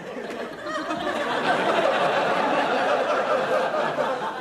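Studio audience laughing, swelling about a second in and dying away near the end.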